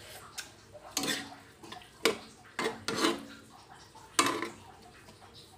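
Spatula scraping and knocking against a metal wok while stirring diced vegetables in sauce: about five strokes, with the pan ringing briefly after the strongest ones.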